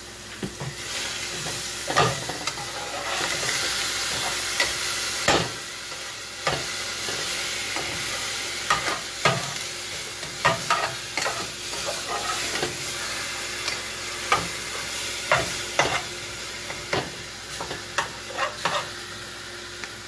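Sofrito of onion, cubanelle pepper and herbs sizzling in a little oil in a small nonstick saucepan while a spoon stirs it, knocking sharply against the pan at irregular moments, every second or so. The sizzle is strongest in the first few seconds.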